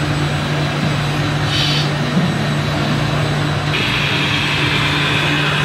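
Radio-controlled model trucks running, a steady mechanical drone with a brief higher whine a little under two seconds in.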